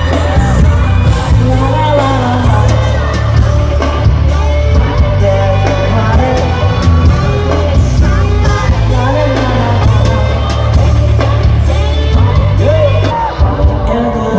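Live pop music played loud over a concert hall's sound system, with a heavy sustained bass line and singing; the bass drops out about thirteen seconds in.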